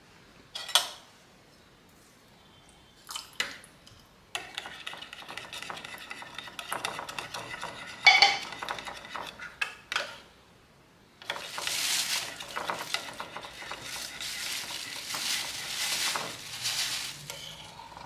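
A metal spoon stirring thick ogi (maize pap) in a ceramic bowl, scraping and clinking against the bowl. A few separate clinks come first, then steady stirring with a short pause about two-thirds of the way through.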